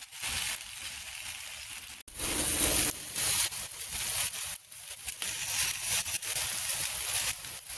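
Oiled green beans sizzling on hot grill grates as they blister, the hiss coming and going in bursts with a brief break about two seconds in.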